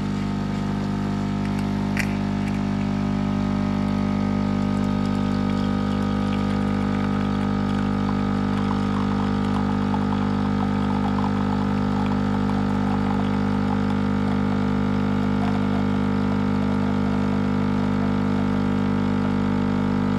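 Kotlie 4-in-1 capsule coffee machine's 19-bar pump running steadily as it pushes hot water through a Dolce Gusto-style coffee pod, dispensing a 4-ounce coffee, with a faint crackle in the middle.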